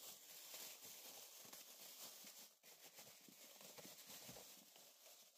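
Faint crinkling and rustling of a thin clear plastic bag as it is pulled off a toy RC car body, with small scattered rustles and taps.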